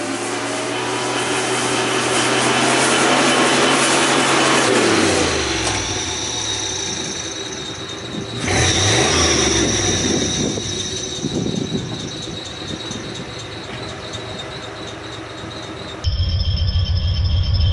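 A pickup's fuel-injected engine running: it holds a steady note, drops in pitch, then is revved up sharply and settles again. The sound changes abruptly near the end to a louder, deeper rumble.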